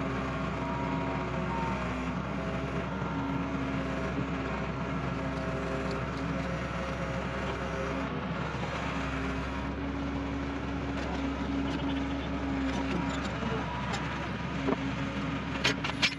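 Crawler excavator's diesel engine running steadily at a constant speed, with the hydraulic breaker held still rather than hammering. A few short sharp metallic clicks come near the end.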